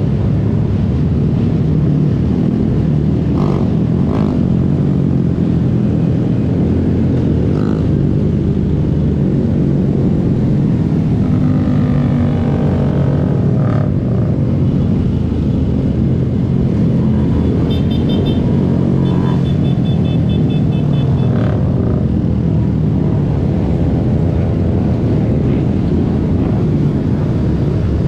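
Small-bore motorcycles running steadily at cruising speed in a group ride, their engines close and loud. About two-thirds of the way through comes a few seconds of quick, high-pitched beeping.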